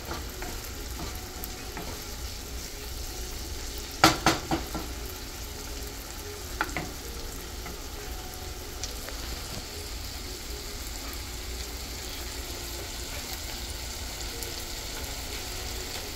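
Diced bell peppers and onion sizzling in butter and oil in a nonstick frying pan, stirred with a wooden spoon. A quick run of sharp knocks from the spoon against the pan about four seconds in, and one more a couple of seconds later.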